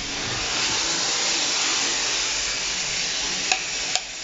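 Steady hiss of water spraying from a leak in a bidet hose, with two sharp clicks near the end.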